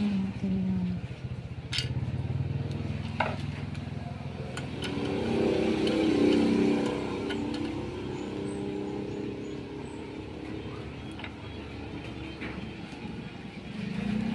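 An engine running steadily, growing louder for a few seconds near the middle and then easing back. A couple of sharp clicks sound over it early on.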